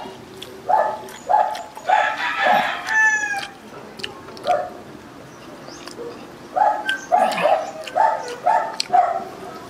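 Repeated short animal calls, about two a second, in two runs separated by a quieter stretch in the middle, with a single call sliding down in pitch just after the first run.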